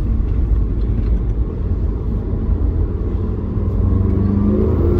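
Volkswagen MK7.5 GTI's 2.0-litre turbocharged four-cylinder, fitted with an intake, turbo muffler delete and inlet pipe and running a Neuspeed power module, heard on the road under a steady low engine and road rumble. About four seconds in the engine note rises as the car accelerates hard.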